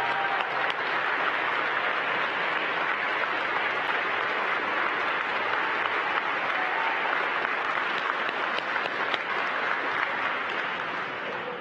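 Large audience clapping steadily, a dense round of applause that begins to die down near the end.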